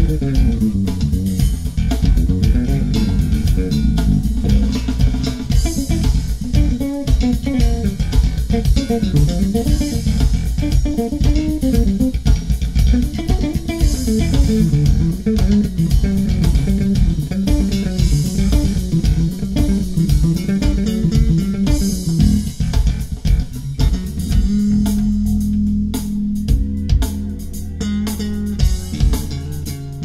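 Solo electric bass music with drums, played back through a Polk Audio Signature S20 bookshelf speaker and picked up by microphone in the room. The bass plays busy melodic lines, then holds a steady low note under sharp percussive hits near the end.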